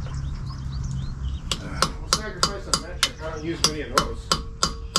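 Hammer striking a chisel held against a seized brake-drum retaining screw on a bus wheel hub. Sharp metallic blows start about a second and a half in and go on at an even pace of about three a second.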